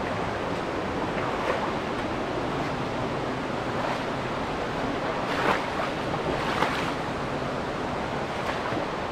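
Rushing river water of the Ibrahim River, a steady even rush, with a few brief louder moments about five and a half and six and a half seconds in.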